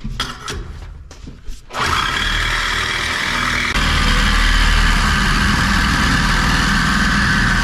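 A few short knocks, then a loud electric motor starts about two seconds in and runs steadily, growing louder shortly after.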